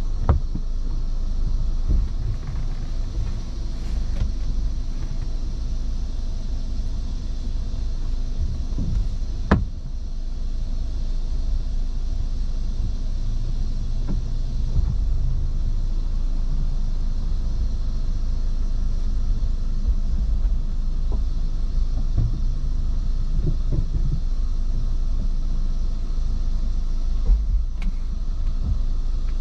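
Steady low rumble of a 2004 Honda Accord EX idling, heard from inside the cabin, with a few light knocks and clicks, the sharpest about nine and a half seconds in.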